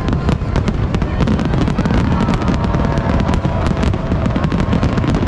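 New Year fireworks display in full barrage: many sharp cracks and pops in quick succession over a continuous low rumble of bursting shells.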